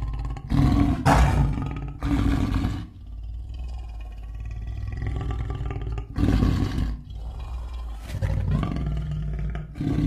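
King Caesar's monster roar sound effect: three loud roars in quick succession in the first three seconds, then two more about six and eight seconds in. A quieter, steady low sound fills the gaps between them.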